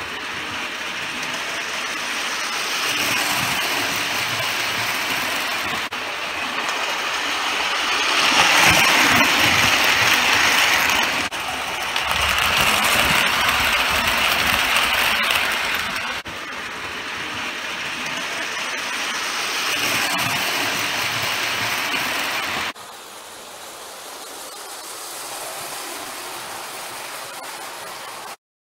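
Prewar Lionel 226E die-cast steam locomotive pulling tinplate Blue Comet passenger cars at speed on three-rail O-gauge track: a steady rolling clatter of metal wheels on tinplate rail with the motor running. The noise swells as the train passes close, changes abruptly at several cuts, and drops lower near the end.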